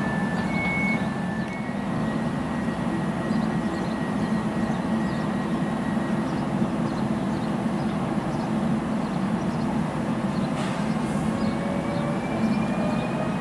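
Newag Impuls electric multiple unit at a platform: two-tone alternating warning beeps for about the first second and a half, then the steady hum of the standing train. Near the end its traction drive begins a rising whine as it starts to pull away.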